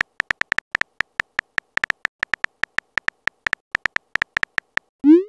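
Phone keyboard key-click sound effects, a quick uneven run of short taps at about six a second as a text message is typed. Near the end comes a short rising swoosh as the message is sent.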